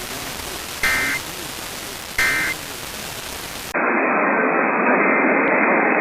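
Emergency Alert System SAME data tones: two short bursts of rapid warbling between two high pitches, over a steady hiss. They follow a third burst just before and are spaced about a second and a half apart. This is the end-of-message signal that closes the warning. About three and a half seconds in, the sound cuts abruptly to louder, muffled radio static.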